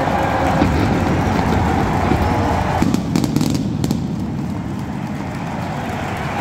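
Fireworks going off above the stadium: a quick run of sharp pops and crackles about three seconds in. They sit over a steady low rumble from the jet flyover and the crowd.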